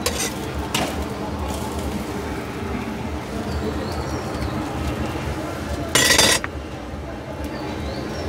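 Metal spatula clinking and scraping on a steel street-food griddle while an egg omelette is flipped and a burger assembled, over a steady low background hum. About six seconds in comes a louder half-second scrape.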